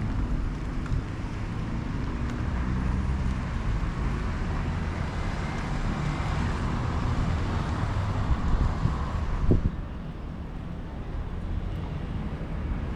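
Street traffic: a car's engine and tyre noise swelling as it goes by, with wind rumbling on the microphone. The traffic noise drops away suddenly about ten seconds in.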